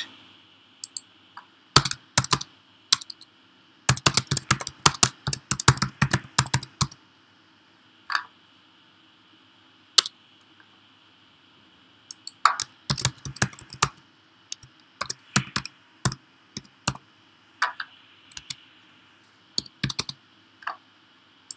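Typing on a computer keyboard in uneven bursts: a quick run of keystrokes a few seconds in, then pauses broken by single taps and short runs of keys.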